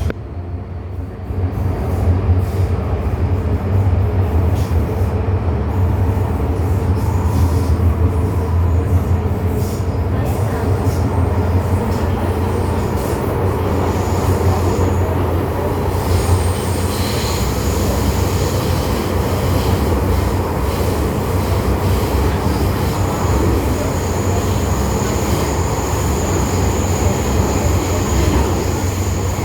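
MTR M-Train running at speed with a steady low rumble, picking up after a couple of seconds. A thin, high wheel squeal comes in about halfway through and again for the last several seconds.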